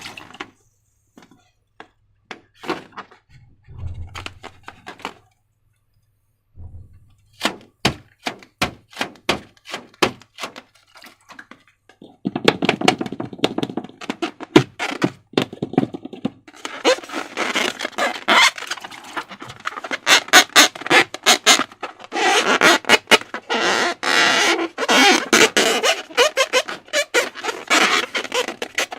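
Hands working slime, squishing and stretching it: a run of sharp wet clicks, then from about twelve seconds in a dense crackling squelch.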